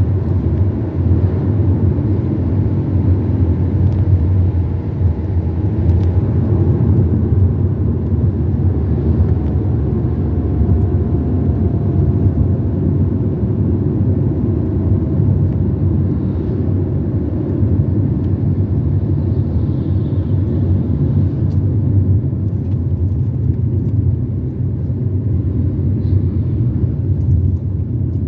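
Steady low rumble of road and engine noise from inside a moving car.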